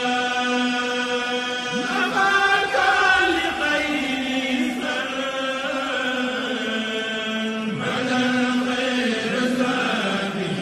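A man's voice chanting Quranic recitation during the standing part of the Eid prayer, in long held notes with the pitch gliding between them.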